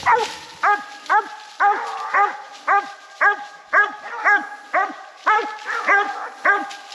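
Coonhound barking at the tree: a steady run of chopping barks, about two a second, each rising and falling in pitch. This is the bark of a hound that has a raccoon treed.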